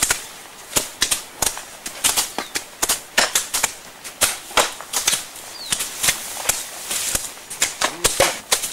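Tall grass being cut and torn out and ditch soil chopped with hand hoes: a quick, irregular run of sharp strikes and tearing rustles, several a second.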